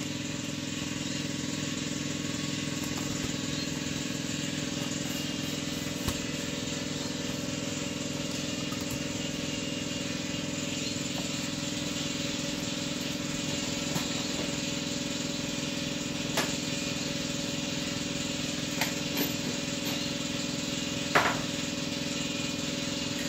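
Steady droning hum of a machine running, with a few short light clicks and knocks scattered through it.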